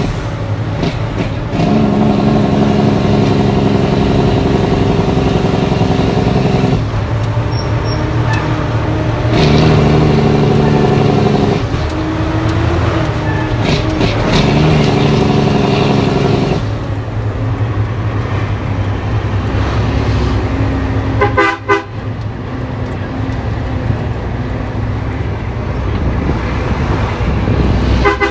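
Heavy truck heard from inside its cab: the engine runs steadily under a loud, even droning tone that cuts in and out in stretches of a few seconds, then the engine carries on more plainly, with two short rattles near the end.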